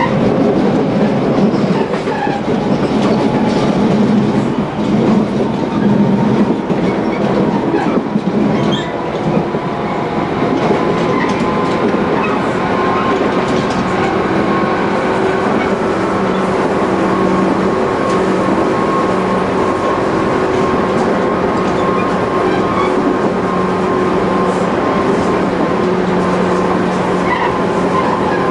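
Tobu 20000 series electric train heard from inside the car while it runs: wheels rumbling and clacking on the rail over a steady hum. Through it comes the intense knock of a flat spot on a wheel, which comes and goes as the load shifts between the left and right wheels on a canted curve. The noise is more uneven in the first ten seconds or so and steadier after.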